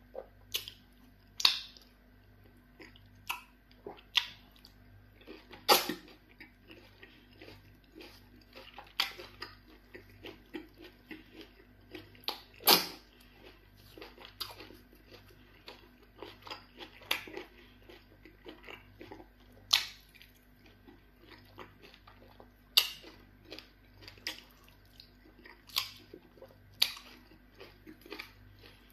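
Close-up eating sounds of pounded yam fufu dipped in black soup and eaten by hand: wet chewing and mouth smacks at irregular intervals, a few much louder than the rest, over a faint steady hum.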